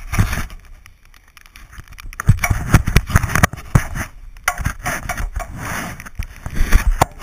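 Pine branches and needles rustling and scraping close against the camera, with irregular knocks and thumps.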